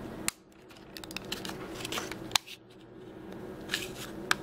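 A small plastic battery box being handled and pulled open by hand, a few sharp plastic clicks over light rubbing.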